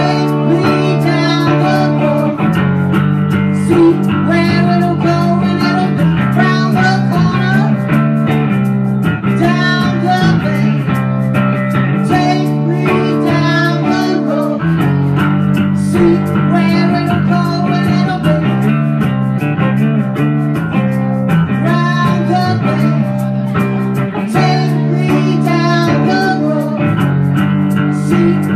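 Live band playing a blues-rock song, led by guitar over a steady beat.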